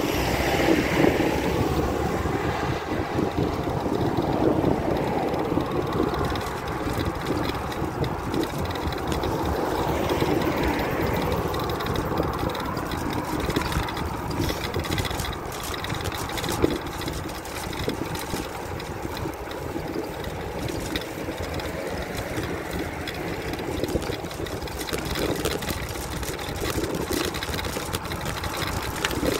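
Steady wind and road noise from riding a bicycle along a road, swelling now and then as motor vehicles pass.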